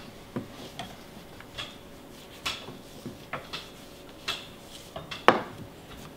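Irregular clicks and clacks of a screwdriver and small hard parts being picked up, set down and worked on a countertop, with one sharper knock about five seconds in.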